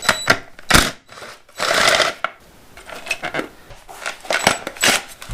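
Hand tools clicking and knocking against the metal headlight bucket and its fittings as it is unbolted from a motorcycle. There is a short scraping rush about two seconds in and a quick run of small clicks near the end.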